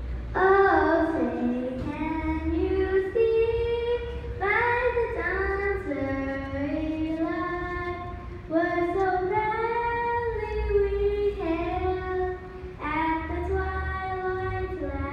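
A young girl singing solo and unaccompanied into a microphone, holding each note for about a second.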